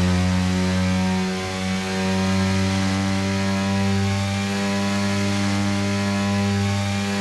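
BMW S1000RR inline-four engine running at steady revs, a loud buzzing tone that holds its pitch with little change.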